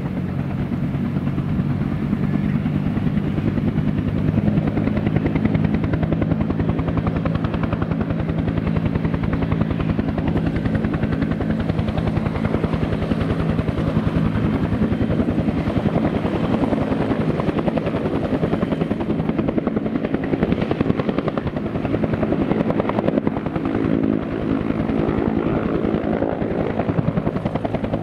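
Bell 205A-1 helicopter running steadily: the rapid, even beat of its two-bladed main rotor over the steady drone of its turbine engine.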